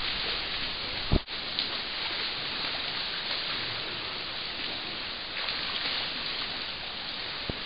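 Steady rushing, splashing water noise of swimmers in a pool, with one short thump about a second in.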